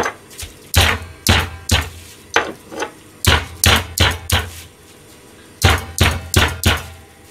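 Meat pounder striking chicken breast through plastic wrap on a plastic cutting board to flatten it: about fourteen sharp thuds in quick runs of three or four blows, with a short pause about five seconds in.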